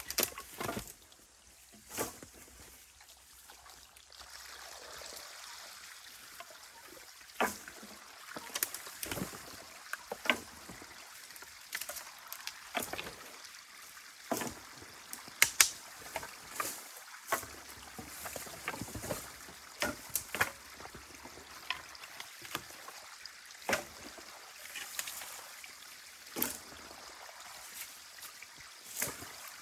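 Irregular splashes and knocks of sticks and mud in shallow water as a beaver dam is pulled apart by hand, over a faint steady trickle of water.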